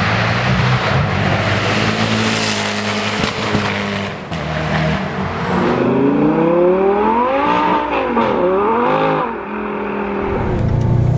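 A performance car's engine under hard throttle. After a loud steady rumble, the revs climb from about halfway through, dip sharply and rise again, then fall away near the end.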